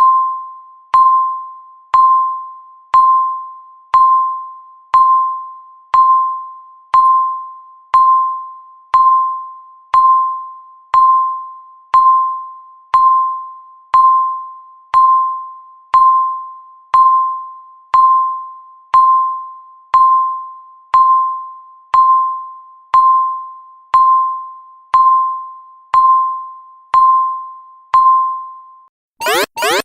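Countdown timer beeping once a second: a short, high ding that rings and fades, repeated about twenty-nine times. Right at the end the beeps stop and a loud, fast-pulsing alarm noise starts, signalling that the countdown has reached zero.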